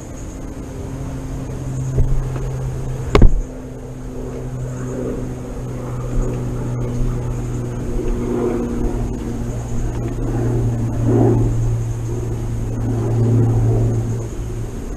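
A steady engine hum, growing louder about eleven seconds in and again near the end. One sharp, loud crack about three seconds in.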